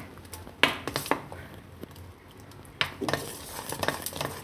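A spoon stirring thick semolina dosa batter in a stainless steel bowl, with a few sharp clinks against the bowl, then quicker clinking and scraping over the last second or so.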